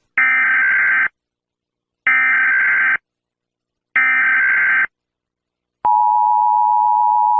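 Emergency Alert System tones opening a simulated alert: three one-second bursts of SAME header data about a second apart, then the steady two-tone EAS attention signal starting near the end.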